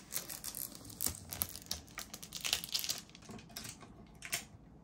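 Clear plastic protective wrap crinkling and crackling in irregular bursts as it is peeled off a vacuum part by hand, thinning out near the end.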